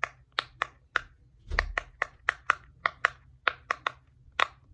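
Silicone pop-it fidget toy (poppet) having its bubbles pressed one after another: a steady run of crisp pops, about three a second. There is a soft low bump about one and a half seconds in.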